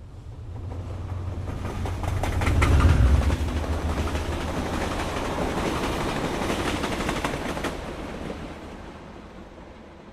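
Train passing by: a rumble that builds from silence, is loudest about three seconds in, with a rapid clatter of wheels over the rails, then fades away.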